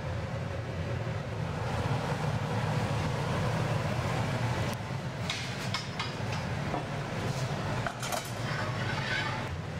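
Steady low workshop hum under a few light metal clinks and clicks of the steel blowpipe and glassblowing tools against the bench arms, about halfway through and again near the end.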